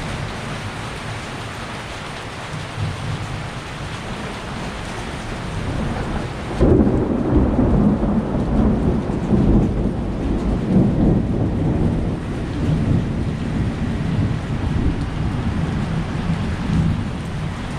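Heavy rain falling steadily, then, about a third of the way in, a sudden loud clap of thunder that rolls on as a deep rumble for several seconds and slowly dies away under the rain.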